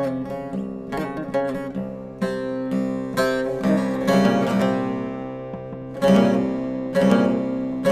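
Background music on acoustic guitar: quick picked notes at first, then strummed chords that ring out, struck about once a second.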